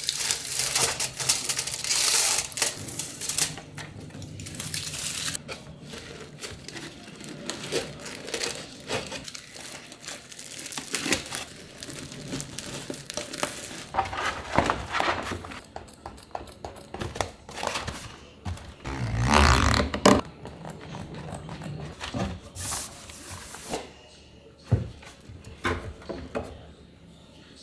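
Crinkling and rustling of aluminium foil and a clear plastic drawer liner being handled, with scattered knocks and bumps from a bamboo organizer box and a drawer. The loudest bump comes a little past the middle.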